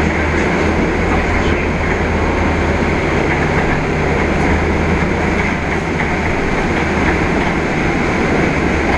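Mercedes-Benz Conecto G articulated city bus heard from inside the passenger cabin while under way: steady engine drone with road and body rumble.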